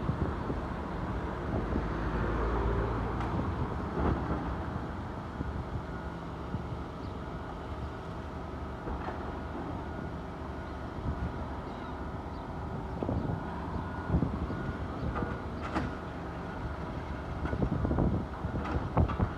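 Heavy demolition machine's diesel engine running steadily, with scattered knocks and clatter of breaking masonry that build up near the end.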